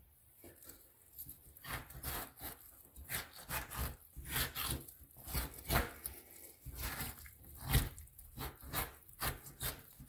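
Fish-skin scraper dragged in short, repeated strokes over the inside of a bass skin, tearing off the meat and fat still attached. The wet scraping strokes begin about a second and a half in and come irregularly, about two a second.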